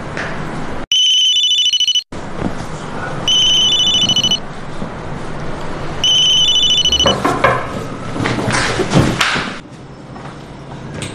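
Electronic doorbell ringing three times, each ring an electronic trill about a second long with a gap of a second or two between rings. Then come a few seconds of thuds and rustling.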